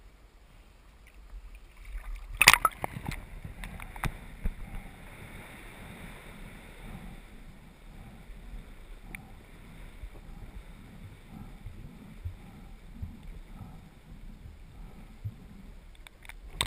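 Splash about two and a half seconds in as the camera plunges under the water, then the muffled, steady low rumble and sloshing of water heard from underwater, with a few faint knocks.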